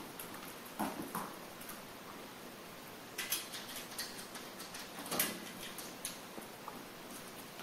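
Miniature dachshund puppy scuffling on a tile floor against a mirror: a few short clicks and taps, the loudest about three and five seconds in.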